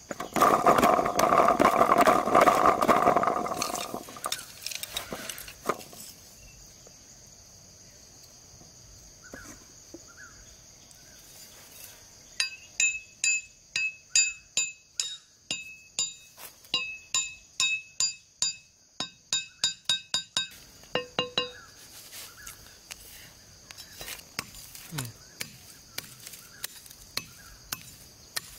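Machete blade knocking a bamboo stake into the ground: a run of sharp knocks with a metallic ring, about two to three a second, through the middle of the stretch. It is preceded at the start by a few seconds of loud rustling and scraping as a plastic bottle is worked on its bamboo axle, with a steady high insect hum throughout.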